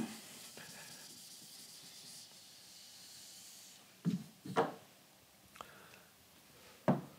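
A board eraser rubbing across a smartboard screen, wiping off pen marks: a soft, even hiss for about four seconds that then stops.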